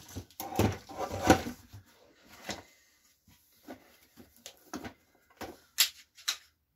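Unpacking noise: rustling and scraping as parts are pulled out of a foam-lined cardboard box, busiest from about half a second to a second and a half in, then a few sharp clicks and taps as small parts are handled.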